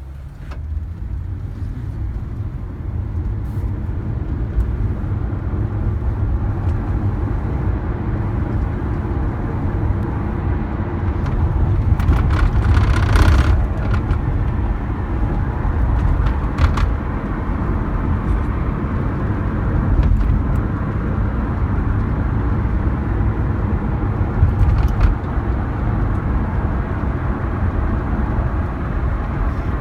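Steady road and engine rumble of a moving Lexus IS 250C, with occasional short knocks from its retractable hardtop roof, a few times over the stretch.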